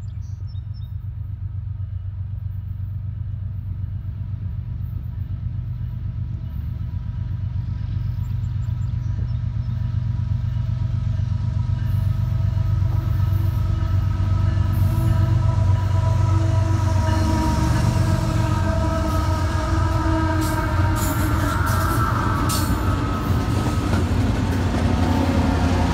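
Diesel freight locomotives approaching, their engine drone of low rumble and steady tones growing louder over the first fifteen seconds or so. Rapid clicks of wheels over the rails come in near the end as the train passes.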